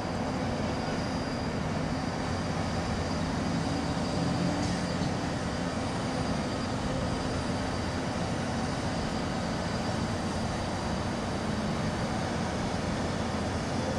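Steady low rumble of outdoor background noise, with a faint low hum through roughly the first half.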